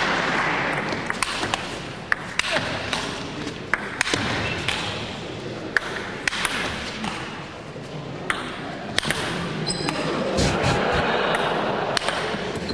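Table-tennis ball clicking sharply against the table and rackets, hits at irregular intervals over a murmuring crowd; the crowd noise swells near the end.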